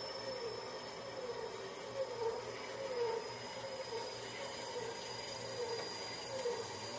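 Harbor Freight metal-cutting bandsaw running steadily, its blade cutting through a block of A2 tool steel, with a thin high whine that sinks slightly in pitch.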